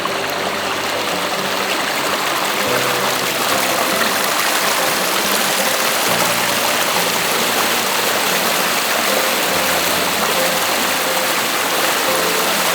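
River water rushing steadily as a dense, even noise, with faint background music of held low notes underneath.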